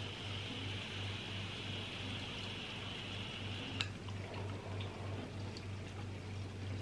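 Box-mod electronic cigarette's coil sizzling with a faint steady hiss during a long draw, ending with a sharp click about four seconds in.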